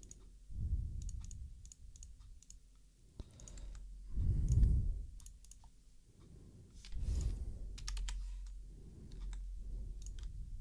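Scattered clicks of a computer mouse and keyboard, with a few soft, low-pitched swells of noise between them, the loudest about four seconds in.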